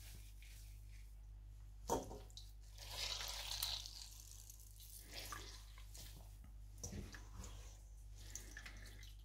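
Soaked bread squeezed by hand, its water running out and dripping into a stainless-steel bowl, with small wet splashes. A single sharp knock about two seconds in is the loudest sound.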